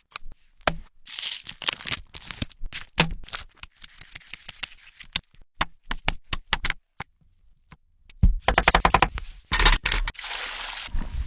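Cooking handling sounds: a string of sharp cracks, taps and tearing noises, with a quick rattle of clicks about eight seconds in and a short hiss after it.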